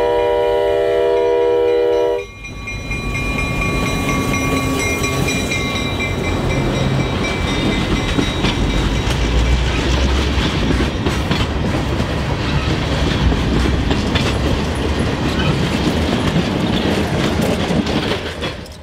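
Diesel locomotive air horn sounding a chord that cuts off about two seconds in. Then an EMD GP16 diesel locomotive's engine running as it approaches, with wheel and rail clatter growing louder.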